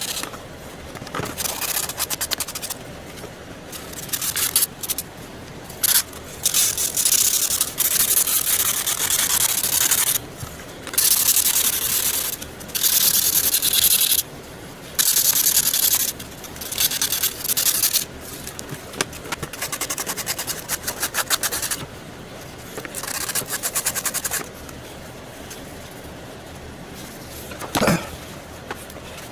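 Repeated scraping strokes, as in hand sanding or filing on a repair job. The strokes come in bursts of a second or two with short pauses between them.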